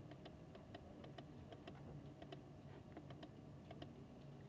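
Quiet library room tone: a low, steady air-conditioning hum under quick, irregular light clicks, several a second.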